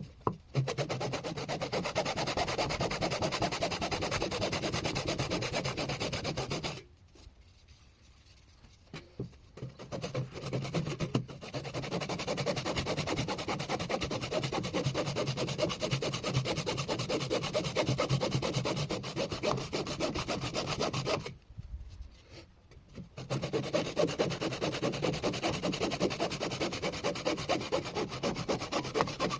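Pine bowl spinning on a wood lathe with something pressed against it by hand: a steady rasping rub in three long stretches, stopping twice for a couple of seconds.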